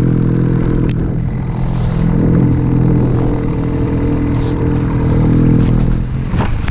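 Ski-Doo 850 two-stroke snowmobile engine running at high revs on a hill climb, getting louder for a few seconds. Near the end the engine note falls away amid a few knocks and a rush of snow noise as the sled tips.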